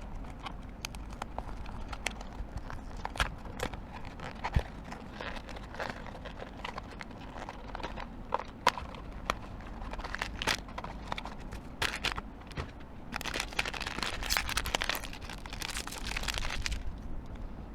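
A blind-box toy package being opened and handled by hand: scattered clicks and taps of cardboard and plastic, then a few seconds of dense crinkling of wrapping near the end.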